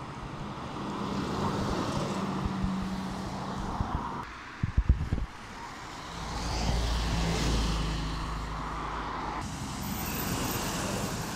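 Diesel engines of heavy vehicles passing close by on a road: first a lorry, then a single-deck bus with a deep low rumble, then a DAF crane lorry. A brief burst of sharp knocks comes about four and a half seconds in.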